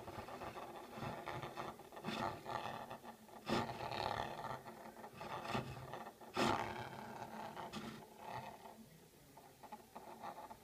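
Irregular rubbing and scraping, with louder scrapes about three and a half and six and a half seconds in, as a large ring magnet is slid over the desk top by hand; it dies down near the end.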